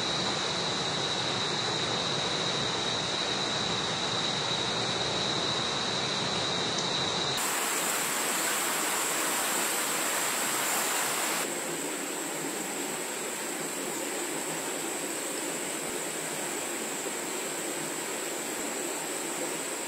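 Night-time outdoor ambience: a steady high-pitched insect drone over an even rushing hiss. The drone jumps to a higher pitch about seven seconds in where the recording cuts, and the hiss drops a little about four seconds later.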